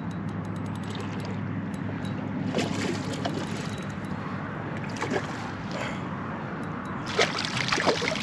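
Water sloshing and splashing around a kayak while a hooked redfish is played on rod and reel, over a steady low background of wind and water. The louder splashes come about two and a half seconds in and again near the end.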